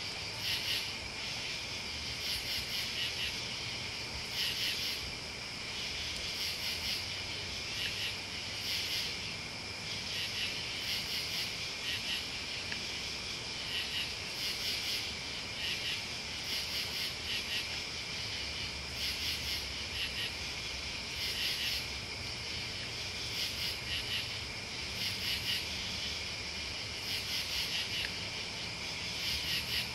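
Crickets and other night insects calling together: a steady high trill under rhythmic pulses of higher chirping that come back about once a second.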